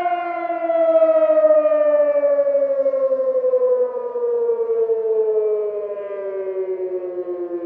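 Emergency siren sounding loudly, its pitch gliding slowly and steadily down, with two tones sliding down together.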